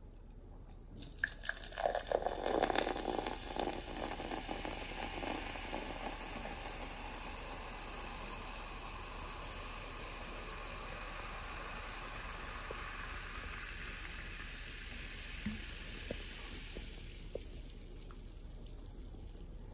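Cola poured into a glass mug: a splashing pour that is loudest over the first few seconds, settling into a steady fizzing hiss of carbonation bubbles as the mug fills, which fades near the end.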